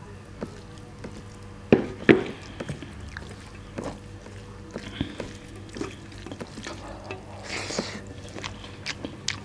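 Hands mixing and scooping rice with wet gravy on steel plates: soft squelching with small clicks of fingers against the metal, and two sharper knocks about two seconds in.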